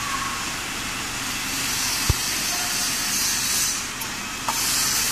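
Push-button power switch on a heat press control panel pressed with a sharp click about two seconds in, over a steady hiss; a second, lighter click follows about four and a half seconds in.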